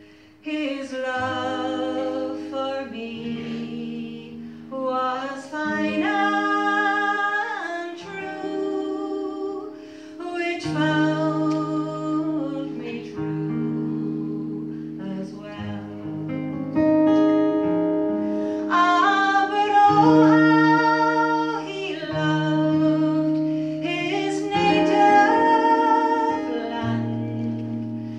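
A woman singing a slow ballad to acoustic guitar accompaniment, in sung phrases of a few seconds each over long held low notes.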